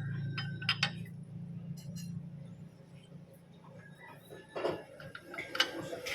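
Metal parts and tools clinking and ringing in short separate strikes, over a low steady hum that fades away in the first couple of seconds.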